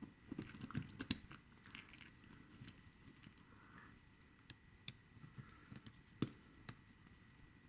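Faint scattered metal clicks and light scrapes as a disc-detainer pick and tension tip are worked into the keyway of a Reliabilt disc-detainer lock.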